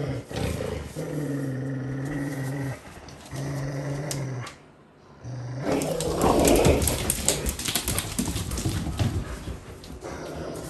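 Rottweilers growling low and steady in long bouts while tugging on a rope toy. From about six seconds in, a busier scuffle of rapid clicks and rustling, fitting paws and claws scrambling on the hard floor.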